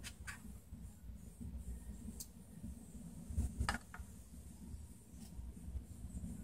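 Light handling noise: a few faint clicks and scratches from tape and a small tool being worked over a bare circuit board, the loudest a pair of clicks a little past halfway, over a low steady rumble.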